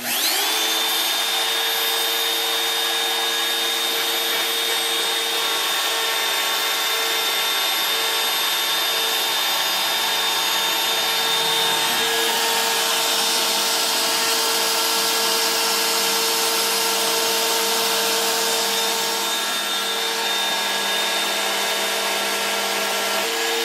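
The Oliver 1013 CNC router's spindle motor whines up to speed in the first half second, then runs loud and steady while its bit mills a slot in PVC lumber.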